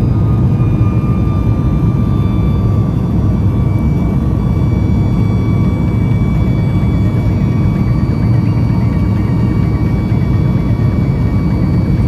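Boeing 737 MAX 9's CFM LEAP-1B jet engines running, heard from inside the cabin: a loud steady rumble with faint high whining tones that drift slowly in pitch.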